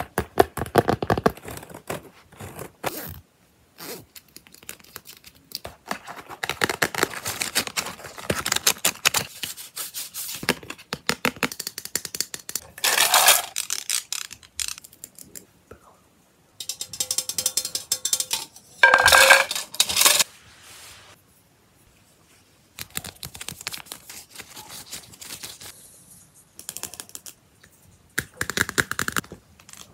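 Handling noise of small objects and a notebook being picked up and moved close to the microphone: irregular clusters of clicks, rattles and scrapes with short quiet gaps between them.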